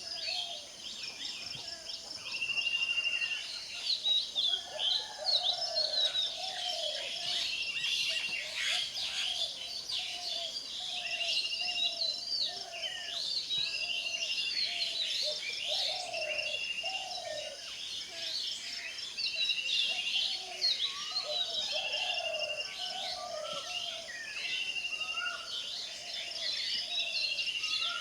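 Several birds singing and calling together in a dawn chorus of overlapping chirps and whistles. One bird repeats a short trilled note every one to two seconds, while lower short calls come and go.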